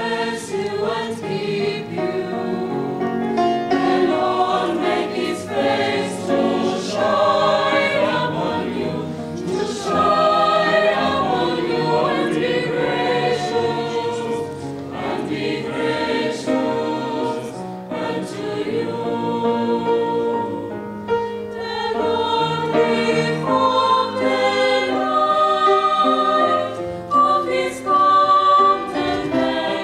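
Mixed choir of men's and women's voices singing together in several parts, with piano accompaniment.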